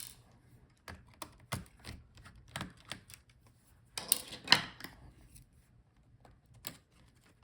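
Scattered small clicks and taps of a screwdriver taking small screws out of a laptop's motherboard, with a louder cluster of clicks about four seconds in.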